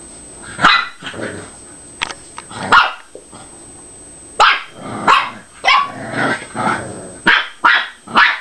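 Two dogs play-fighting, letting out a run of short, sharp barks mixed with growls, coming faster in the second half.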